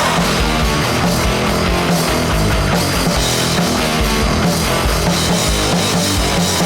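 Loud heavy metal music with electric guitars and drums.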